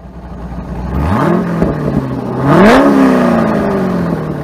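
A car engine revving twice: it fades in, climbs in pitch about a second in and holds, then revs higher near the three-second mark and slowly winds back down.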